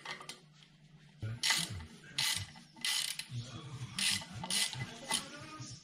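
Ratchet fitted with a Torx 27 bit clicking in short repeated bursts as it backs out a rear brake disc's securing screw, starting about a second in.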